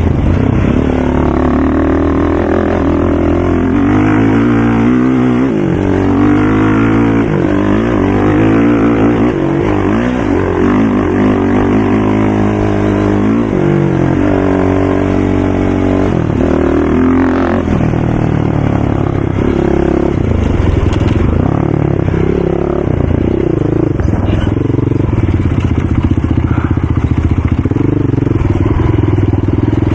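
Several racing ATV engines running and revving together, their overlapping engine notes rising and falling as they speed up and slow down.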